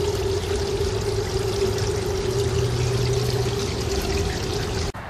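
Clear rainwater runoff spilling in a small fall over rocks and splashing into a pool: a steady rush of pouring water with a steady low hum beneath it. It cuts off suddenly near the end.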